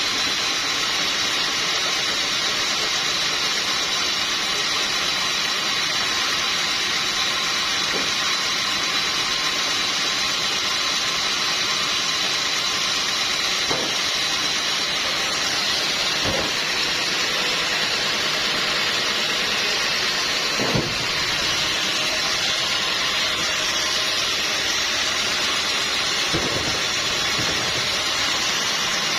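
Sawmill machinery running steadily: a high whine over a constant hiss, with a few scattered knocks.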